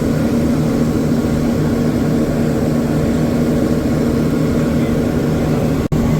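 Fast passenger boat's engines running steadily, an even drone with a constant low hum. The sound drops out for an instant near the end.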